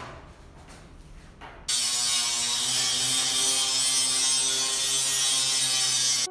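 An angle grinder grinding a bevel into the edge of steel angle iron to prepare it for a stronger weld. After a quieter start it cuts in suddenly about two seconds in as a loud, steady grind with a hum under it.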